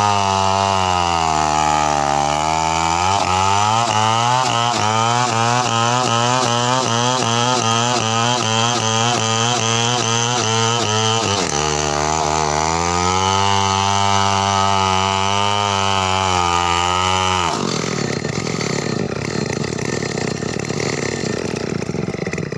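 Two-stroke chainsaw engine running at high revs. Its pitch dips and climbs back, then warbles rapidly up and down about twice a second for several seconds before steadying. Near the end the clear engine note gives way to a harsher, noisier sound.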